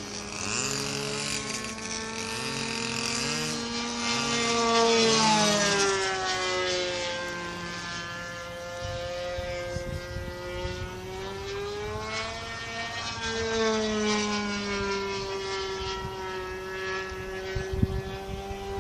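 Glow-fuel engine of a radio-controlled model airplane in flight, a steady engine tone whose pitch drops about a third of the way in and rises again past the middle as the plane passes and changes throttle. Wind buffets the microphone in the second half.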